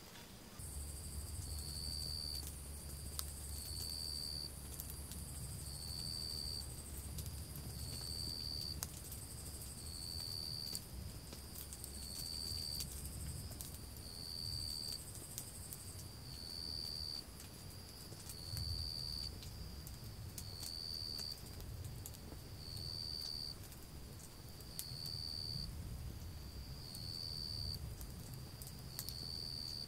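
Insects singing: one repeats a short, high call about every two seconds over a steady, higher-pitched insect chorus. Faint scattered clicks and a low rumble lie underneath.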